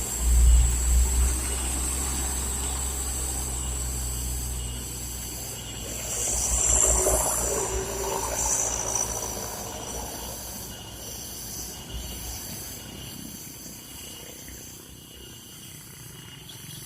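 Heavy loaded truck's diesel engine labouring uphill: a deep rumble, loudest in the first second or two, that slowly fades as the truck moves away. A hissing swell about six to nine seconds in.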